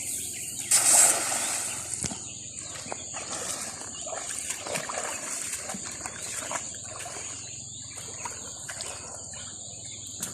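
A steady high insect drone with a loud splash about a second in, followed by scattered small splashes and clicks.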